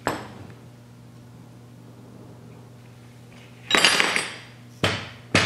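Metal clattering and knocking from an A-type overdrive housing and tools being worked on a workbench: a knock at the start, a burst of rattling clatter a little under four seconds in, then two sharp knocks about half a second apart near the end.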